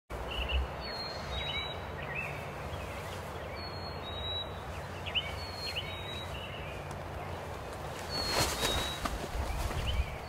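Songbirds calling: one bird repeats a short, high two-note whistle, falling from the first note to the second, about every two seconds, with scattered chirps from other birds over a steady low rumble. A brief louder rush of noise passes about eight seconds in.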